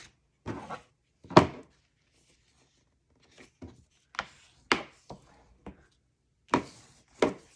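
Card stock being folded and handled on a tabletop: a run of short, sharp taps and knocks with pauses between, the loudest about a second and a half in.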